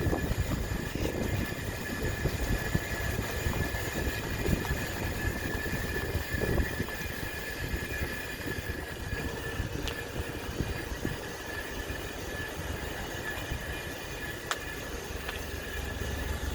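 Grinding noise from the right side of a 2013 Range Rover Evoque over a steady low rumble, with a steady high-pitched whine running through it. The owner does not know its cause; the noise comes and goes.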